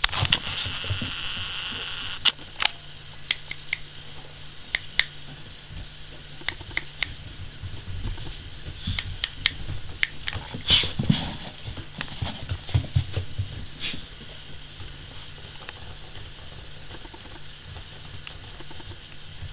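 Cavalier King Charles spaniel gnawing a deer antler: irregular sharp clicks and scrapes of teeth on hard antler, with a cluster of duller knocks about halfway through. A dog sniffs close up in the first couple of seconds.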